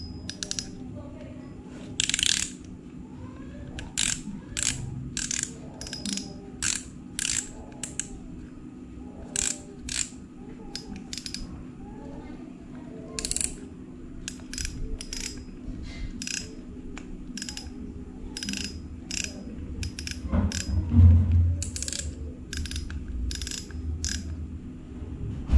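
Brand-new Shimano Sienna 1000 FE spinning reel's drag clicking as the spool is worked by hand: a long run of sharp, irregular clicks, often in pairs or small clusters. A dull knock of handling comes near the end.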